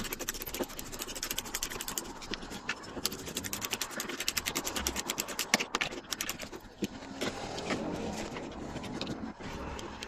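Screwdriver unscrewing the bolts of a refrigerator's door hinge, with rapid, even metal clicking for about the first six seconds, then quieter scraping and a few clicks near the end.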